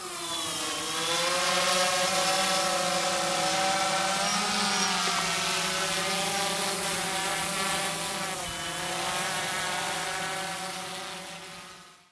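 Multirotor camera drone's propellers buzzing as it hovers, the pitch wavering slightly up and down, fading out near the end.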